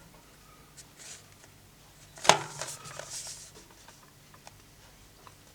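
Steelbook case being handled: a few faint clicks, then a sharp clack a little over two seconds in, followed by about a second of rustling and small taps.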